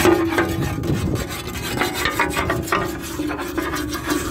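Rough rubbing, scraping noise made of many short irregular strokes, over the steady drone of a tractor engine.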